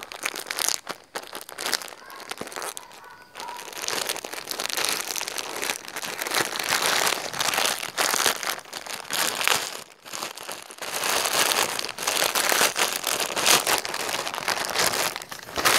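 Plastic courier packaging bag crinkling as it is handled and opened, in irregular crackles with short lulls about three and ten seconds in.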